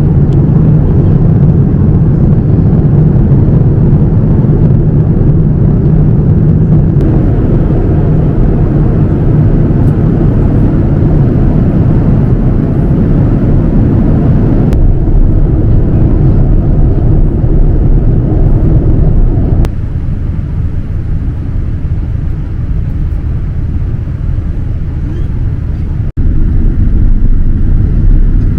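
Steady low rumble of engine and airflow noise inside the cabin of a Boeing 787-9 airliner. It shifts abruptly in level a few times: quieter about two-thirds of the way through, then a brief dropout and louder again near the end.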